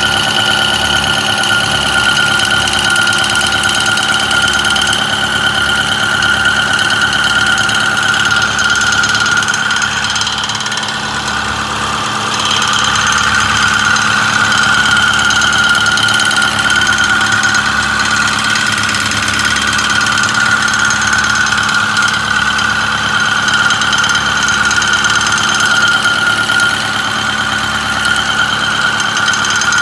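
Ford 6.4 L Power Stroke V8 turbodiesel running with a rattle, first at idle, then a little louder from about twelve seconds in as the engine is held near 1200 rpm.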